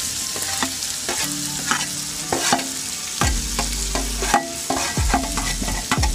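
Tomato pieces dropping into hot oil and fried onions, sizzling steadily, while a spatula scrapes and knocks against the steel plate to push them off.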